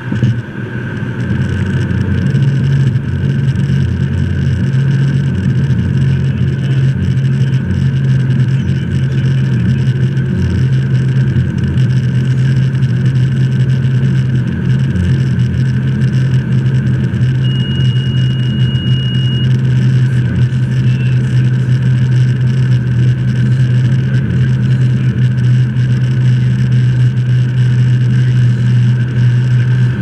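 Steady loud rumble of airflow and engine noise inside a Learjet 35A cockpit on final approach. The rumble rises sharply at the start and settles within about two seconds. A brief high steady tone sounds about two-thirds of the way through.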